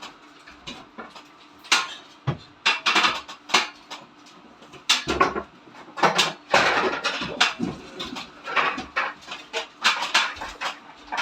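Metal tools and parts clinking and clattering in an irregular string of sharp knocks, busiest midway through, over a faint steady hum.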